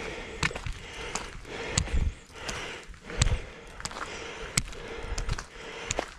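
Footsteps crunching on a gravel path, a step about every two-thirds of a second, with two heavier dull thumps in the middle.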